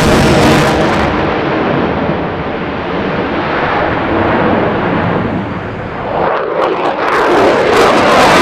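F-22 Raptor's twin Pratt & Whitney F119 afterburning turbofans in afterburner: loud jet noise whose treble fades about a second in as the jet pulls away. About seven seconds in, the full sound swells back.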